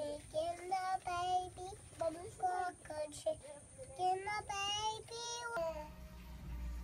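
A young child singing in a high voice, holding and bending notes in a simple tune. The singing cuts off suddenly about five and a half seconds in, leaving only a faint low hum.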